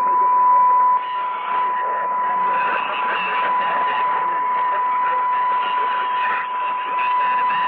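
Weak shortwave AM signal from a distant Brazilian station on 4845 kHz, coming from a Sony ICF-2001D receiver. A voice is faint under heavy steady static hiss, and a steady whistle tone holds through it.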